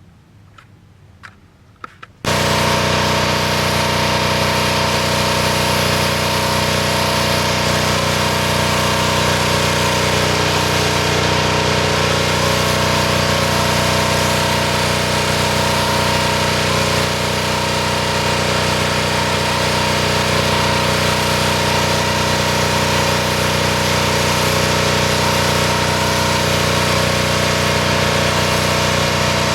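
A few faint clicks, then about two seconds in a small engine's sound cuts in abruptly and runs steadily at an even pitch.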